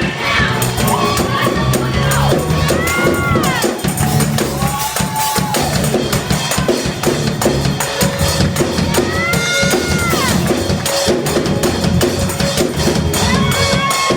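Live gospel praise music in church: drum kit and bass driving a steady beat, with voices rising over it in several long held notes.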